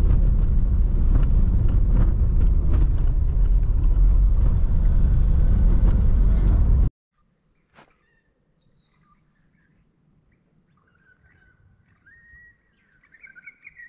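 Vehicle driving on a rough dirt track, heard from inside the cab: a steady low rumble from engine and tyres, with frequent knocks and rattles over bumps. It cuts off suddenly about seven seconds in, leaving near quiet with faint bird calls near the end.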